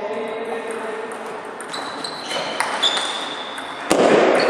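Table tennis ball clicking off bats and table as a serve starts a rally: a few sharp knocks, each with a short high ring, over the hum of a sports hall.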